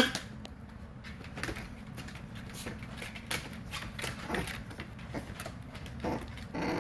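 Puppies moving about, making irregular light clicks and taps, with a few short squeaks, one near the end.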